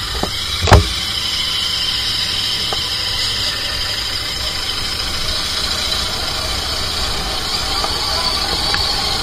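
Royal Enfield Interceptor 650's 648 cc parallel-twin engine running steadily as the motorcycle rides along, with one sharp thump under a second in.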